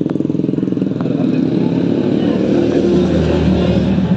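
Motorcycle engine idling with a fast, even putter.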